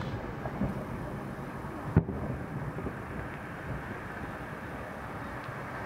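Aerial firework shells bursting: one sharp bang about two seconds in, with a couple of fainter pops before it, over a low steady rumble of background noise.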